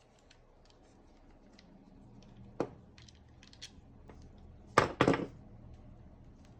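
Light clicks and taps of a plastic power-tool battery case and hand tools being handled while its Torx security screws are taken out, with a sharp knock about two and a half seconds in and a louder double knock about five seconds in.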